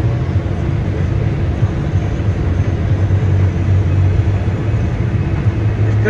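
Combine harvester running steadily while cutting corn and unloading grain through its auger on the go, heard from inside the cab as an even low drone.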